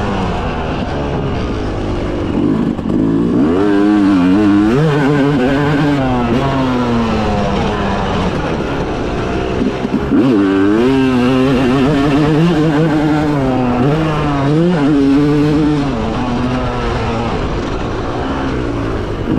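Motocross bike's engine heard from on board while riding a lap, its pitch climbing and dropping back again and again as the throttle is opened and closed between rises and corners of the dirt track.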